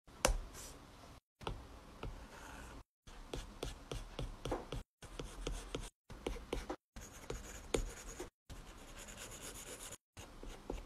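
Drawing strokes on paper, a faint scratching and rubbing with light ticks. It comes in short stretches cut apart by brief silences every second or two.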